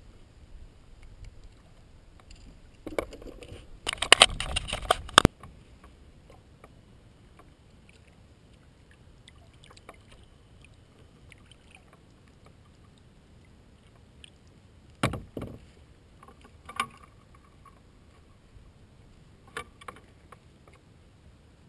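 Kayak being handled on the water: a loud stretch of splashing and knocking about three to five seconds in that stops abruptly, then three short single knocks spread over the rest, with quiet water between.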